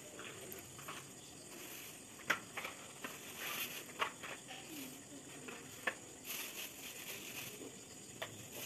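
Cardboard firecracker boxes being unpacked from a plastic carry bag and set down one by one on a stone floor: several sharp taps with plastic rustling between them.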